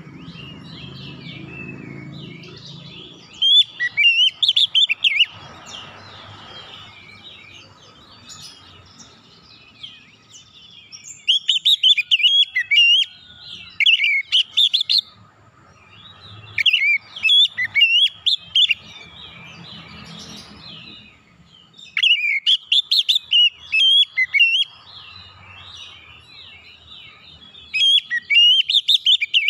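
Oriental magpie-robin singing: about five loud phrases of rapid, sharp, high chirps and whistles, each lasting a few seconds, with short pauses between them.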